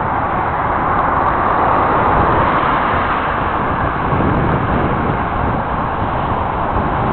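Steady rushing noise of riding a bicycle: wind buffeting the camera's microphone over the rumble of tyres on the path.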